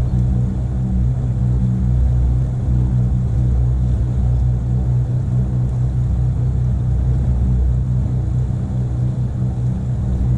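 Motorboat engine running steadily at cruising speed, a constant low drone.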